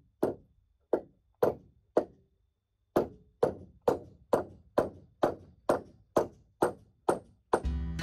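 Hammer driving nails into stacked 2x12 boards being nailed together into a header beam: a steady run of sharp wooden knocks about two a second, with a short pause about two seconds in. Acoustic guitar music comes in near the end.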